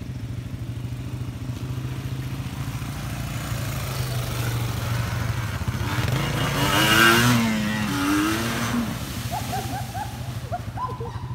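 Dirt bike and ATV engines running, with a louder rev that rises and falls in the middle. Near the end come a few short rising calls.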